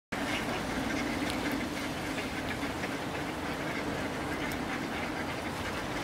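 A flock of mallard ducks quacking as they crowd in to be fed, over a steady background noise.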